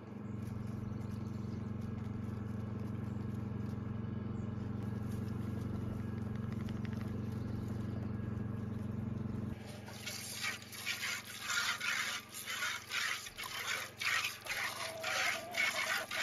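A steady low mechanical hum, then, about ten seconds in, the rhythmic hiss of milk squirting into a stainless steel bowl as a goat is hand-milked, about two squirts a second.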